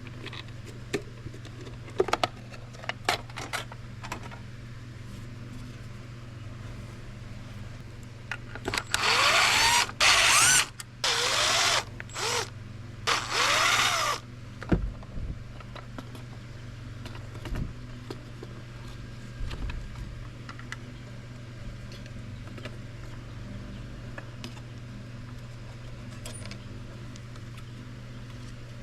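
Cordless drill-driver run in four or five short bursts, its pitch sweeping up and down as it spins up and slows, backing screws out of a dash gauge cluster's housing. Light clicks and handling of plastic parts come before it.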